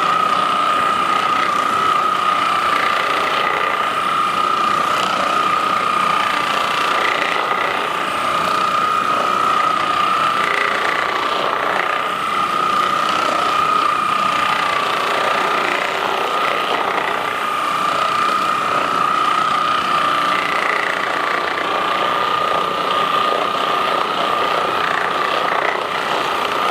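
Handheld percussion massage gun running steadily: a continuous motor whine over a rapid mechanical rattle, cutting off at the very end.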